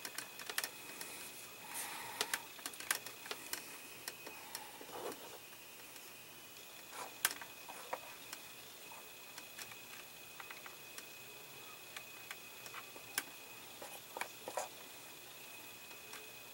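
Scattered small clicks and taps of fingers handling and pressing wiring and tubing onto a plastic model dashboard, with the sharpest clicks about seven and thirteen seconds in.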